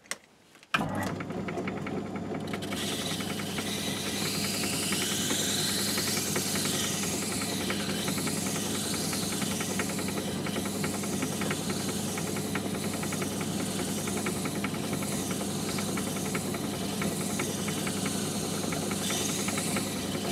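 Myford ML7 lathe switched on just under a second in and running steadily, with a motor hum and fine even gear ticking. From about two and a half seconds in, a grinding hiss joins it: the model engine's cylinder being slid back and forth along the spinning hardwood lap coated with valve grinding paste, lapping the bore smooth.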